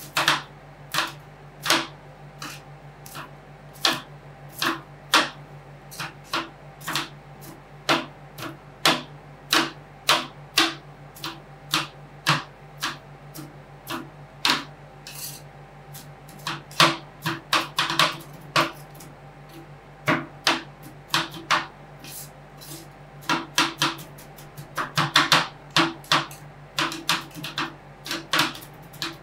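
Metal spatulas chopping and tapping on a steel ice-cream-roll cold plate, smashing chocolate-nut bars into the ice cream. The sharp clacks come irregularly, about one or two a second, with quick flurries, over a steady low hum.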